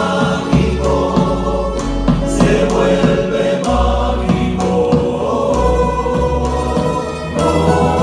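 A men's chorus singing in harmony over strummed acoustic guitars and small plucked lutes, a Canarian parranda folk ensemble playing live.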